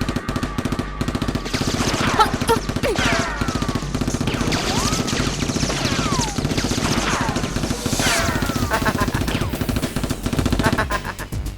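Rapid automatic gunfire, a dense unbroken stream of shots, with whistling tones that fall in pitch cutting across it twice.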